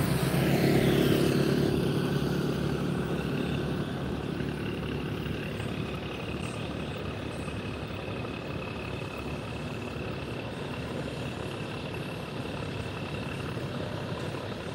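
A heavy vehicle's engine, loudest at the start and fading away over the first few seconds, then a steady low hum of distant traffic with a faint high tone.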